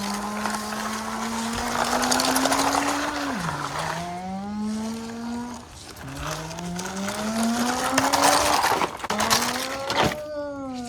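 A person imitating a vehicle engine with their voice: long humming 'vroom' tones that dip and then slowly climb in pitch, repeated several times, with a rushing noise behind them.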